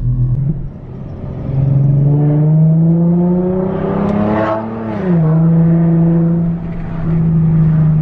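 Infiniti G37's 3.7-litre V6 heard from inside the cabin while driving: the revs climb under acceleration, drop sharply about five seconds in as the automatic shifts up a gear, then hold steady.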